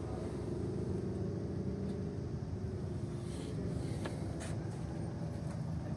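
Perkins diesel engine of a 65 kVA generator set running steadily under load, a constant low drone with a few faint clicks about four seconds in.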